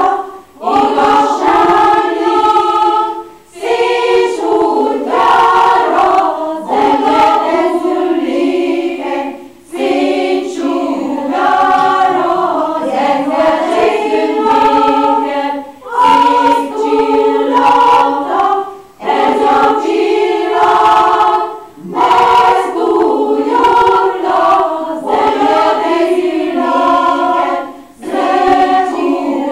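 Choir of mostly women's voices singing unaccompanied, in phrases of two to four seconds with short breathing pauses between them.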